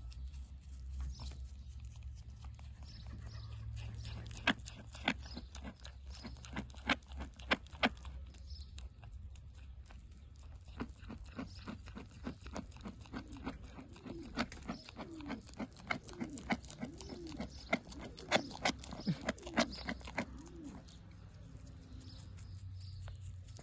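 Young goat chewing pieces of raw apple, with crisp, rhythmic crunches in two spells: a short one about four seconds in and a longer one from about eleven seconds until near the end.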